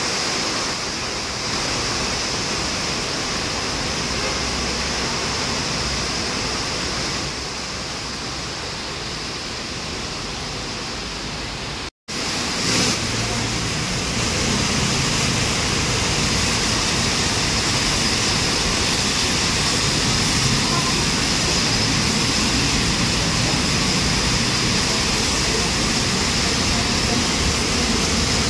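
Steady rain falling with road traffic running through it. The sound cuts out for an instant about twelve seconds in and comes back a little louder.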